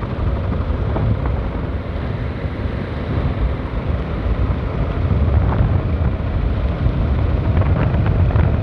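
Riding a motorcycle on a rain-wet road: wind rushing over the microphone over the engine and tyre noise, a steady rumble that grows a little louder about halfway through.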